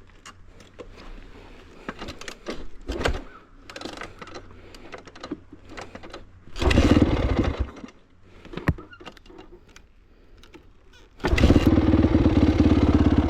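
Small motorcycle being got ready: clicks and knocks of handling, a short burst of engine noise about seven seconds in, then the engine starts near the end and keeps running steadily.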